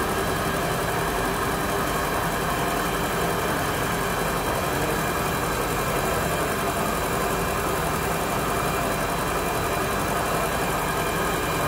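Volvo Penta sterndrive engine idling steadily, running on its freshly installed and primed fuel pump.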